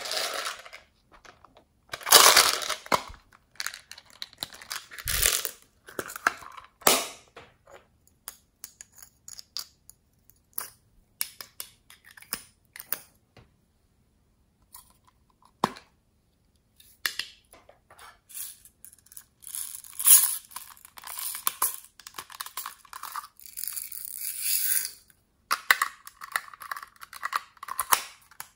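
Small plastic toys and cases handled close to the microphone: scattered clicks, taps and scrapes of hard plastic, with a longer scratchy rustling passage past the middle and another near the end.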